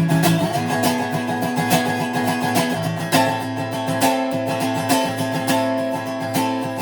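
Greco D-70 acoustic guitar being played, chords picked and strummed with ringing notes. The chord changes about three seconds in.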